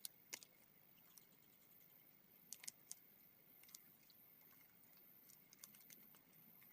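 Near silence with a few faint, scattered clicks and a faint steady high tone.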